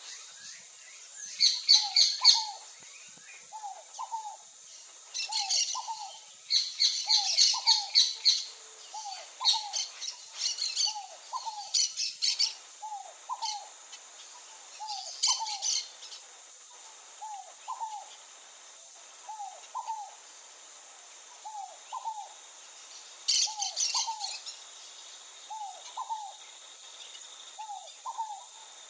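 Birds calling. A low two-note call repeats about every second and a half throughout, and louder bursts of rapid high chirping come and go over it.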